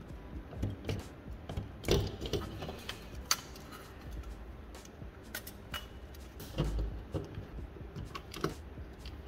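Handling of a graphics card being reassembled: scattered clicks and knocks of its plastic and metal parts, with a louder knock about two seconds in and a sharp click just after three seconds.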